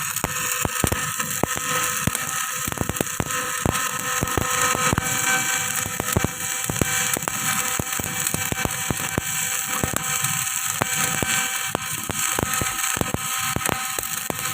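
Electric arc welding of a horizontal pile joint: a steady crackling hiss, dense with irregular sharp pops.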